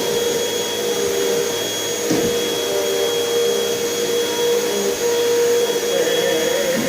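Vacuum cleaner running steadily, a constant motor whine over rushing air, with a light knock about two seconds in.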